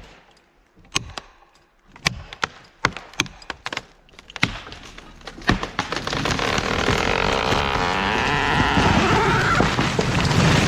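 Sharp, irregular cracks and knocks of wood in the first five seconds, then a cedar falling: a loud rushing swish of its crown and branches through the air that builds toward the end.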